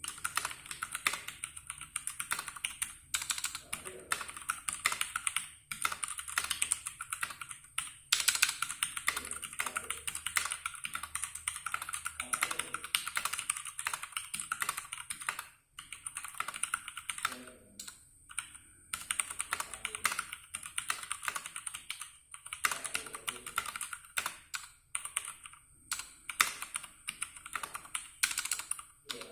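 Typing on a Ducky One 2 Skyline mechanical keyboard with Cherry MX Brown switches: a rapid, continuous run of key clacks with a few short pauses.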